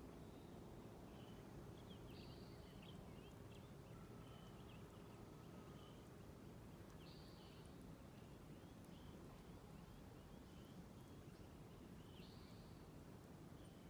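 Faint birdsong at a pond: scattered high chirps from several birds, and one bird repeating a short song phrase that rises into a held, buzzy high note, three times about five seconds apart, over a low steady outdoor hush.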